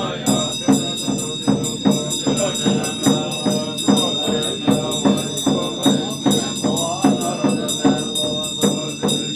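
Buddhist monks chanting in a ritual ceremony to a steady beat of about two to three strokes a second, with bells ringing continuously over the chant.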